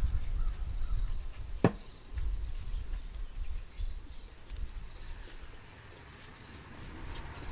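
Outdoor farmyard sounds: a low rumble, one sharp click about one and a half seconds in, and later two quick, high bird chirps that each slide down in pitch.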